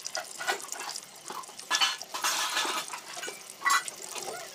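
Bajji frying in hot oil in a steel kadai: a crackling sizzle, louder for about a second a couple of seconds in, with metal clinks of kitchen utensils.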